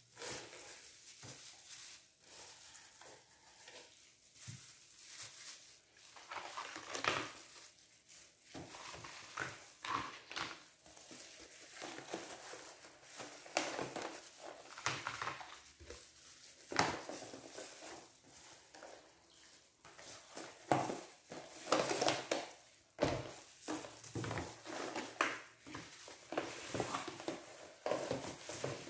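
Clear plastic food tubs and thin plastic food-handling gloves crinkling and clicking as white cheese cubes are packed into the tubs by hand, in irregular handling noises with a few sharper knocks.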